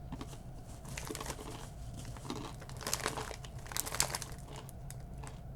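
Crinkling of a Takis chip bag being handled, in irregular bursts, loudest about three and four seconds in.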